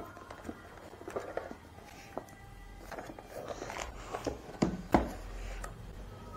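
Hands handling a cardboard product box on a wooden table: scattered light clicks, scrapes and rustles, with two sharper knocks in quick succession a little past halfway.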